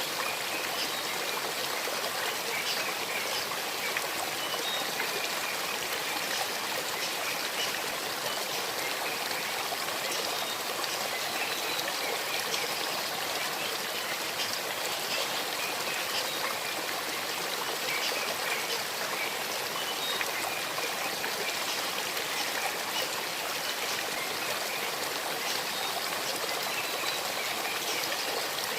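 Small stream running over river stones: a steady, unbroken babble and hiss of flowing water.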